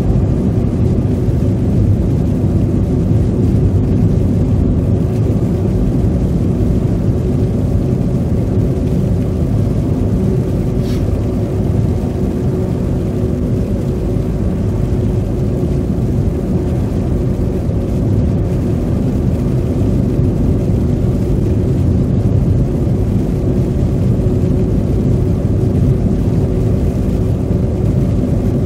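Steady road noise heard inside a moving car on a slushy winter road: a low rumble of tyres and engine with a faint steady hum.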